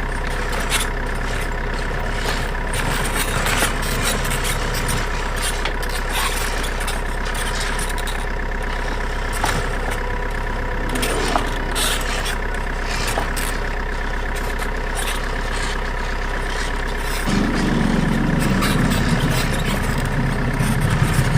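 Steady idling truck-engine sound from an RC offroad truck, with scattered light clicks and knocks. About three-quarters of the way through, a deeper rumble comes in and grows louder toward the end.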